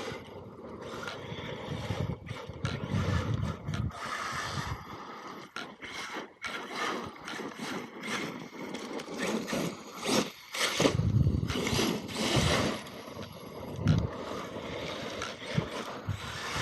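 Electric RC monster truck driving over loose dirt and gravel in bursts of throttle, with tyres scrabbling and many short knocks and clatters from the chassis and stones.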